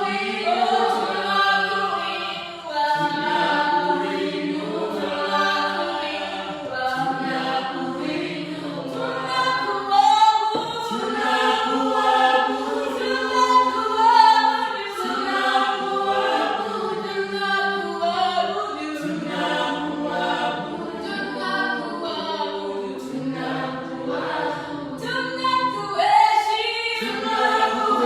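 Church praise team singing a worship song together as a choir, several voices in harmony.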